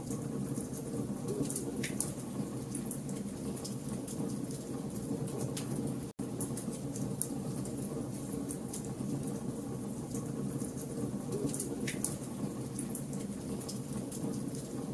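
Campfire of burning logs: a steady low rush of flame with sharp crackles and pops scattered throughout. The sound cuts out for an instant about six seconds in.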